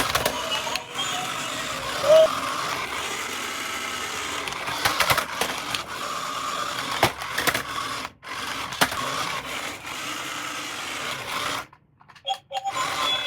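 Small electric motor of a toy vehicle whirring steadily, with scattered clicks, cutting out briefly near the end.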